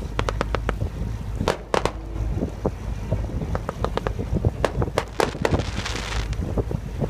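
Firecrackers popping in quick, irregular sharp cracks, with a brief hissing rush about six seconds in, over wind buffeting the microphone and a steady low rumble.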